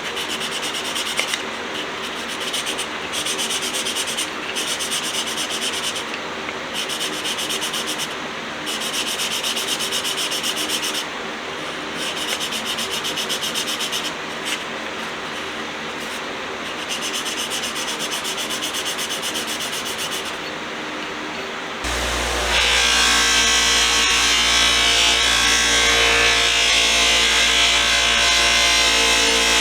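Metal wrench parts being worked against a motor-driven wheel while refinishing rust and oxidation. The wheel runs steadily and each pass gives a hissy rub of one to two seconds, again and again. About 22 s in, a louder, deeper-running tool starts and keeps on.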